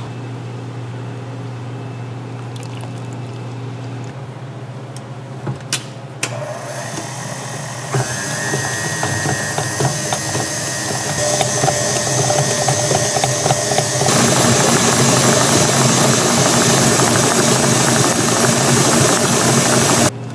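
A couple of clicks, then an electric mixer motor starts and runs, growing louder and higher in steps, and cuts off suddenly near the end.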